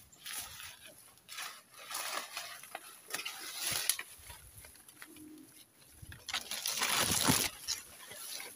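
Footsteps and rustling as a person pushes through leafy undergrowth and dry banana leaves, in four uneven bursts, the loudest about seven seconds in.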